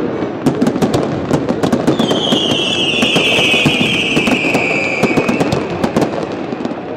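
Fireworks display: a rapid run of sharp bangs and crackles from bursting shells. A high whistle slowly falling in pitch runs from about two seconds in to about five seconds in.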